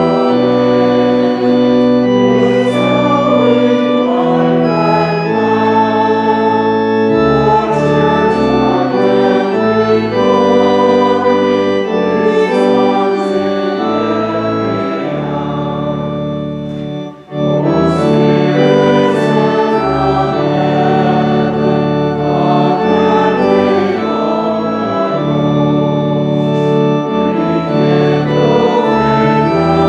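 Church organ playing a hymn in sustained full chords, with a brief break about halfway through between phrases.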